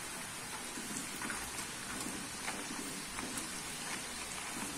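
Hot oil sizzling steadily with scattered faint crackles as strands of butter sev dough deep-fry in an iron kadai. The bubbling is still vigorous, so the sev is not yet done.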